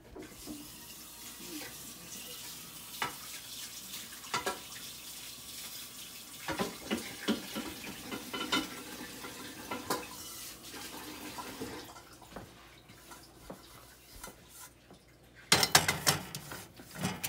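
A steady hiss with scattered clinks and knocks of kitchenware. The hiss stops about twelve seconds in, and a louder clatter of dishes follows near the end.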